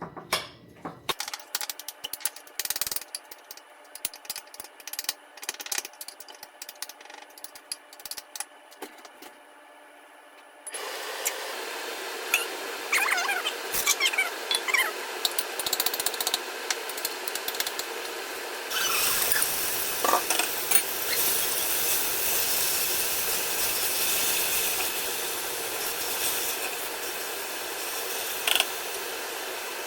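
Spoon clicking and scraping while a filling is mixed. About a third of the way in, a steady sizzle starts suddenly as onion, garlic, green chilli and capsicum go into the hot oiled pan, with crackles and clinks of stirring. It gets louder about two-thirds in.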